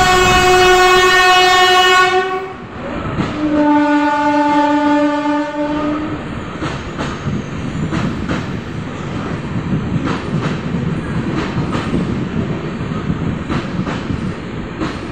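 Two long horn blasts from the WAP-4 electric locomotive, the second lower in pitch, ending about six seconds in. Then the LHB coaches rolling past at speed with steady rumble and wheels clicking over rail joints.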